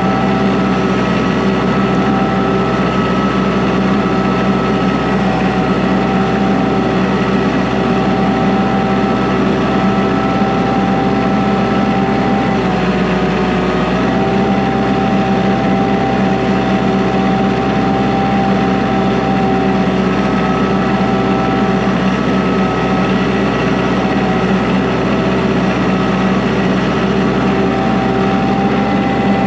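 Engine running at a steady speed, with a slight shift in pitch around the middle.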